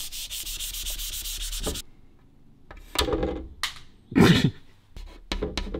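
Chalk writing on a blackboard: one long scratchy stroke of nearly two seconds, then a run of short strokes and dabs, the loudest a little past the middle.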